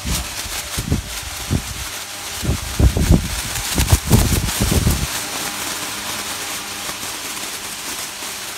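High-speed five-blade industrial pedestal fan running, a rapid 2800 rpm model; its strong airflow rushes over the microphone, buffeting it with gusty low thumps for about the first five seconds, then settling into a steadier rushing hiss.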